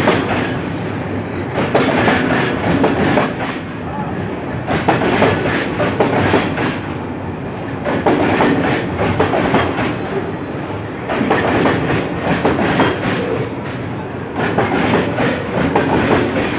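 Container freight train rolling past at close range: a loud steady rumble with the wagon wheels clattering over the rail joints in repeated groups every second or two.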